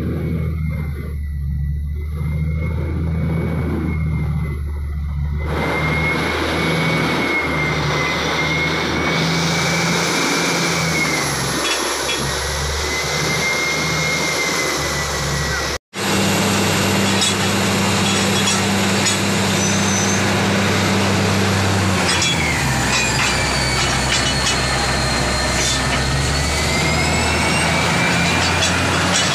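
Tractor-mounted borewell drilling rig at work: the tractor engine running steadily under load with a hiss and a wavering whine from the rig. After a break about halfway through, the sound is louder and full of rattling knocks.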